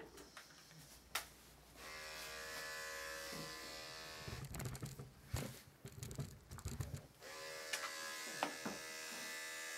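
Electric dog grooming clipper with a 10 blade, switched on about two seconds in and running with a steady hum as a cocker spaniel is shaved down. In the middle there are low thumps and knocks from handling.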